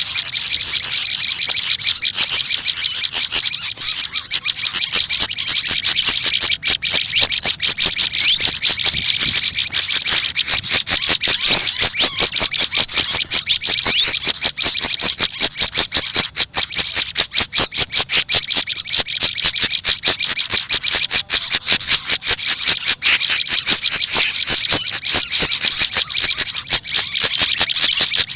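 Small songbird giving a fast, unbroken run of sharp chirps, several a second, as a continuous chattering song.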